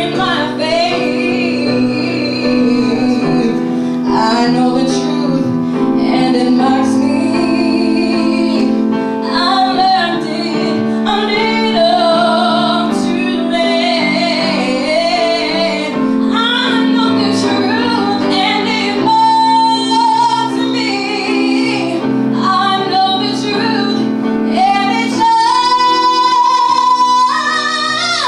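A woman singing lead vocals over sustained instrumental chords, holding a long high note near the end.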